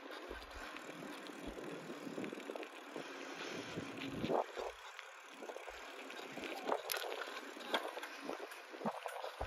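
Bicycle rolling over pavement: steady tyre and road noise with scattered small clicks and rattles, and short gusts of wind on the microphone.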